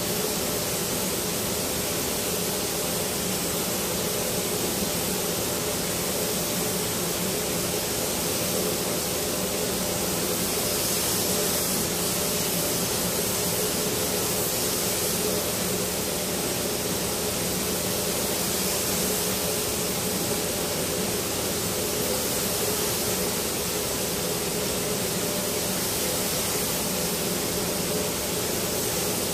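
Compressed-air spray gun hissing steadily as it sprays the last coat of high-build primer onto a car body, with a steady low hum underneath.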